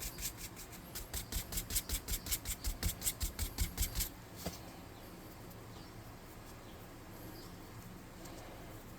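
Paint brush scrubbing in quick, even strokes, about five a second: dry brushing paint onto a miniature. The strokes stop about four seconds in, leaving faint room noise.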